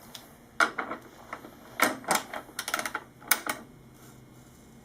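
Ratchet wrench clicking in short irregular runs while tightening the rear axle nut of a motorcycle, with a quick run of ticks about three seconds in.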